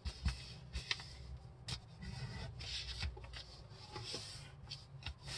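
A folded sheet of paper pressed flat and creased by hand on a tabletop: faint rustling with a few small crackles and clicks.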